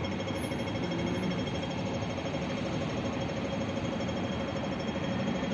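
Steady street ambience beside a road with passing traffic, an even noise with a faint steady hum running through it.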